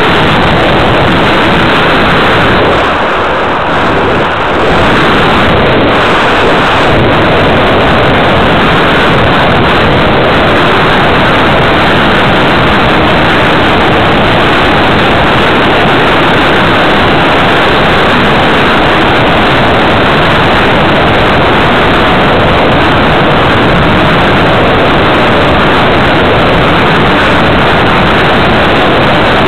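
Loud, steady rush of airflow on the onboard camera's microphone as a radio-controlled model plane flies, briefly easing about three seconds in.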